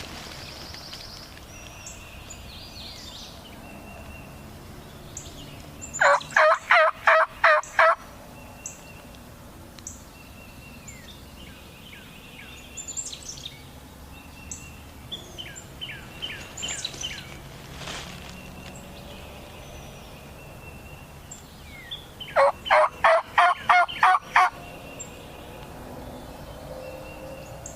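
Two loud runs of turkey yelps, about seven or eight evenly spaced notes in each, one about six seconds in and one about twenty-two seconds in. Small birds chirp faintly in between.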